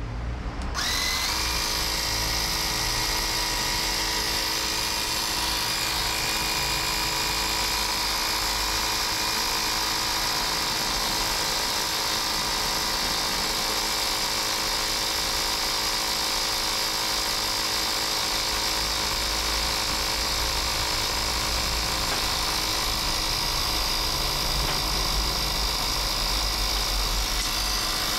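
Bosch EasyPump cordless mini compressor switching on about a second in and running steadily with a constant whine and hiss as it inflates a rugby ball.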